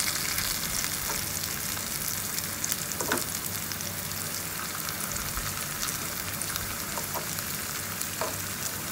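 Spiced potato slices shallow-frying in a little oil in a pan on a low flame, with a steady sizzle. A fork turning the slices over gives a few short, light clinks against the pan.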